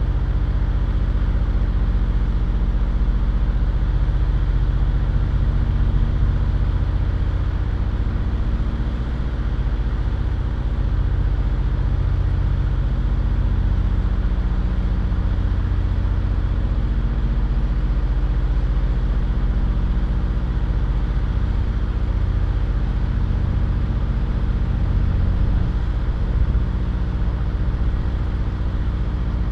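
Vehicle engine idling steadily while stopped in traffic: a constant low hum with an unchanging pitch.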